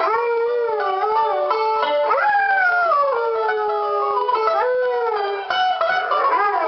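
A Groenendael Belgian Shepherd dog howling along to a resonator mandolin, the howl sliding up and down in long glides over the plucked mandolin notes.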